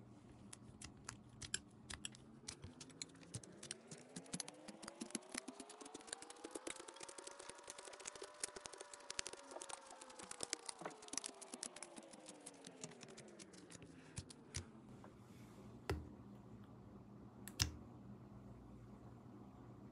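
Thick paint being mixed and folded with a metal palette knife: a dense run of small sticky clicks and taps. Near the end come two louder single taps as the knife pats the mixed paint flat. Under the clicks, through the middle, a faint tone rises in pitch and falls back.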